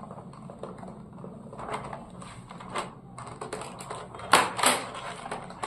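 Handling of a chocolate box and its packaging: light clicks, taps and rustles, with two louder knocks in quick succession about three-quarters of the way through.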